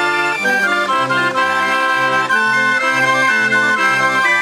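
Hand-cranked barrel organ (Drehorgel) built by W.F. Holl of Berlin, playing a tune. Held melody notes sound over a bass note and chord that alternate in a steady beat.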